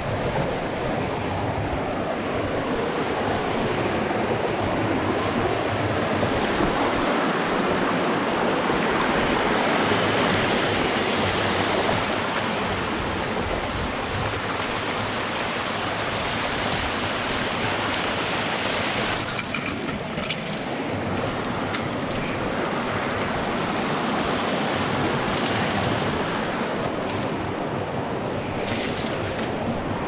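Rushing water of a creek running over cascades and rocks, a steady, full rush swelling slightly about ten seconds in. The stream is running high with snowmelt. A few brief clicks come through around twenty seconds in and again near the end.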